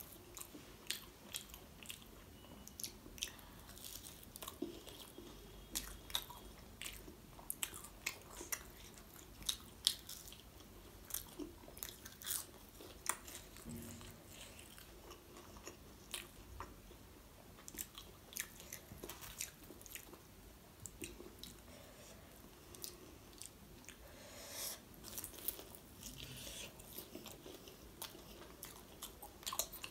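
A person biting and chewing crisp fried momos close to the microphone: a continual run of short crunches and mouth clicks.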